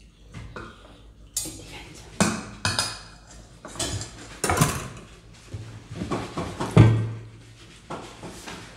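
Stainless steel tableware clattering: a serving spoon scraping and clinking against a steel rice pot and plates in a series of sharp clinks, with one louder knock about two-thirds of the way through.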